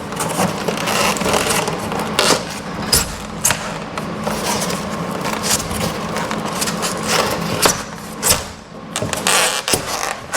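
Foam insulation panel being pressed and worked into a steel garage door section: continuous scraping and rubbing of foam against metal, with many short knocks and creaks as it is seated.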